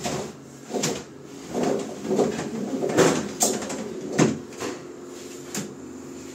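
An aluminium sliding window with a built-in roller shutter being worked by hand: the shutter is raised and the glass panes slid, giving a run of knocks, rattles and scrapes, the loudest about three and four seconds in. A steady low hum comes in over the last second or so.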